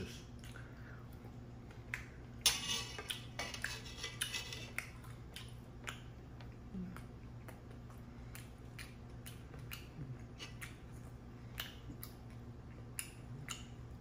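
Steak knife and fork scraping and clicking against a plate while slicing steak. The longest, loudest scrape comes about two and a half seconds in, followed by scattered light clicks of cutlery on the plate.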